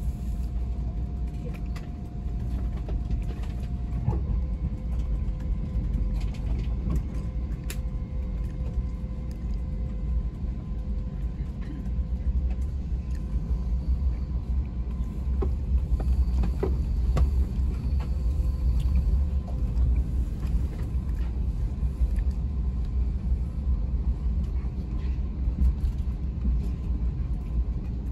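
Amtrak Acela train running, heard inside a passenger car: a steady low rumble with faint whines that come and go and a few sharp clicks.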